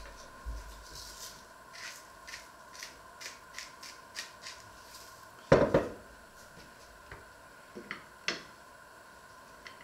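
Kitchen knife clicking and scraping against a wooden cutting board as butter is sliced, a couple of short taps a second. About halfway through comes a louder brief clatter, then a few single clicks as the slices are set on a plate.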